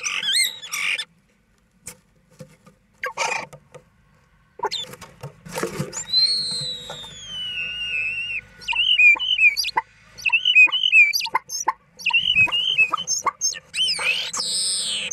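Male common starling singing: a few short calls and clicks at first, then from about four and a half seconds a dense, varied song. It holds a long falling whistle, a run of quick wavering notes mixed with clicks, and a loud rising sweep near the end.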